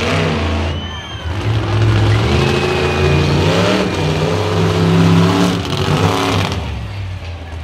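Monster truck engine running loud and revving, its low drone rising and falling in pitch as the truck drives across the dirt arena.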